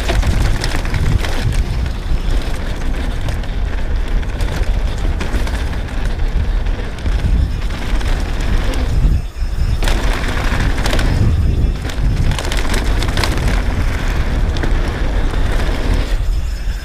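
Wind rushing over an action camera's microphone while a downhill mountain bike is ridden fast down a dirt trail, with tyre roar and the bike's chain and frame rattling over bumps. The noise dips briefly about nine seconds in.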